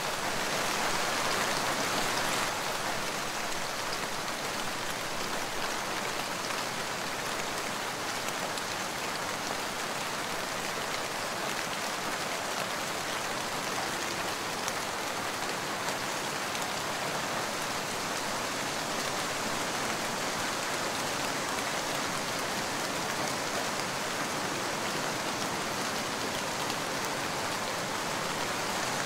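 Steady light rain falling and pattering on surfaces: an added rain sound-effect track. It is a little louder for the first two seconds or so, then holds level.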